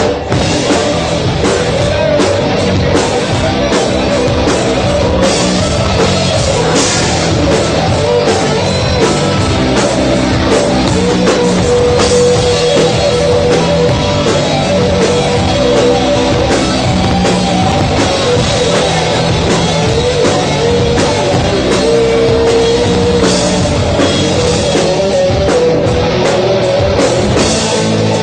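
Rock band playing a song: drum kit and electric guitar, loud and steady, with a held melodic line over the beat.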